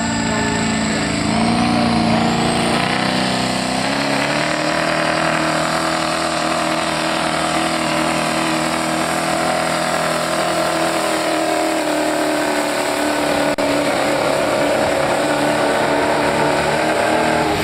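Turbocharged diesel pickup pulling a weight-transfer sled. The engine climbs in pitch over the first few seconds, then holds at high revs under heavy load, with a high whine rising over it early on.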